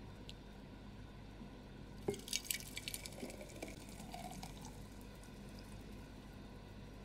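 Thick red smoothie poured from a blender jug into a glass jar: a run of wet splats and drips about two seconds in as the first of it lands, then a soft flow.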